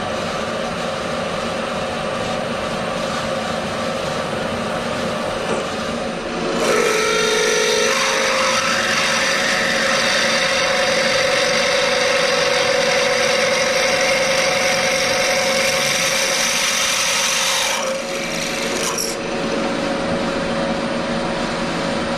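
Milling machine spindle running, then from about six seconds in a drill bit cutting a hole through a steel plate, a steady whining tone over a hiss, for about eleven seconds before the cut stops and the spindle runs on.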